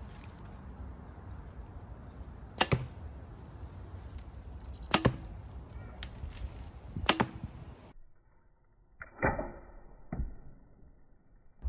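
Mathews V3 27 compound bow being shot: three sharp cracks of the string releasing, about two seconds apart, then two duller knocks near the end.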